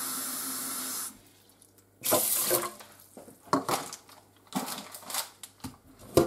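Kitchen tap running into a rice cooker's inner pot of washed glutinous rice, shut off about a second in. Then several short splashes of water sloshing in the pot as it is handled over a stainless steel sink.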